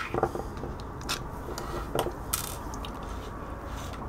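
Handling noise from a plastic hair curling iron and a screwdriver: a few light knocks and clatters as the iron is turned in the hands and the screwdriver is put down on the workbench, with a short scrape about two and a half seconds in.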